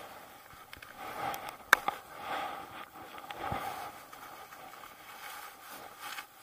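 Rustling of a nylon shell jacket sleeve close to the microphone and scraping in snow as a gloved hand works at a ski boot, with irregular swishes and a sharp click a little under two seconds in.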